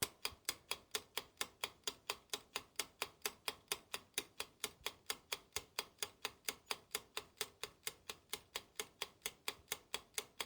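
Ticking-clock sound effect: a steady run of sharp ticks, about four a second, that starts and stops abruptly.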